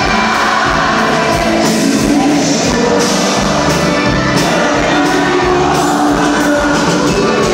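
Live grupera band music, loud and steady: button accordion, electric bass, guitars, keyboard and a steady drum beat, with singing.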